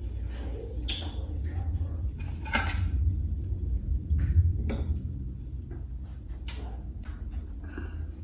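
A metal utensil clinking against a saucepan a few separate times as hot dogs are lifted out of their cooking water, over a steady low hum.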